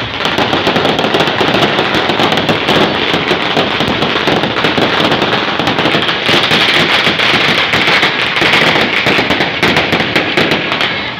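Fireworks and firecrackers going off together in a loud, dense, continuous crackle of rapid pops.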